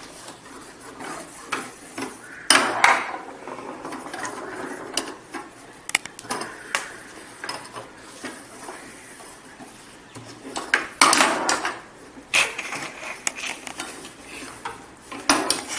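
Tabletop foosball game in play: the ball and the plastic players on the rods clack and knock in an irregular run of sharp clicks, with several louder bursts of clattering.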